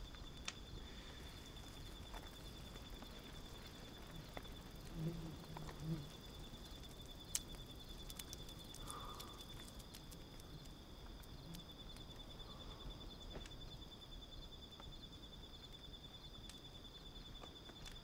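Faint night-time forest ambience: an insect trilling steadily at one high pitch, with scattered small clicks and two soft low thuds about five and six seconds in.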